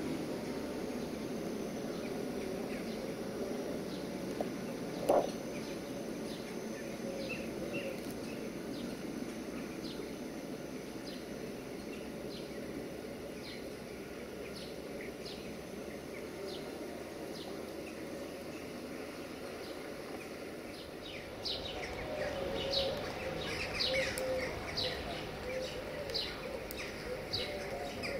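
Diesel railcar approaching slowly, a steady low running noise, with one brief loud blip about five seconds in. Small birds chirp over it, short high chirps about once a second that grow denser and louder over the last several seconds as the low noise swells.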